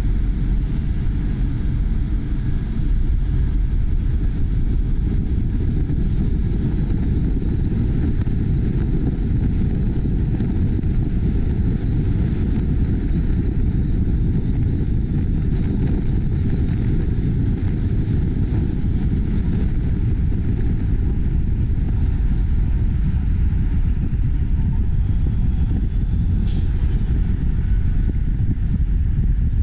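Steady rumble of wind and road noise from a moving car, picked up by a camera mounted on its hood, with a brief sharp high sound near the end.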